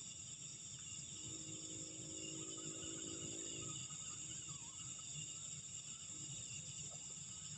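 Night-time insect chorus of crickets and other insects, a steady layered high-pitched trilling. About a second in, a low hum with several pitches joins for a couple of seconds and then fades.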